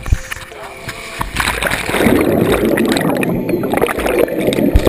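Water slide run ending in the pool: the rider's wet sliding gives way, about a second and a half in, to a splashdown and then loud churning, bubbling water noise heard underwater through the GoPro's housing, which eases off just before the end.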